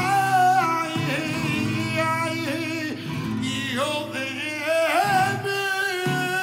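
Male flamenco singer singing a long, wavering cante line over flamenco guitar, which strikes chords every second or two beneath the voice.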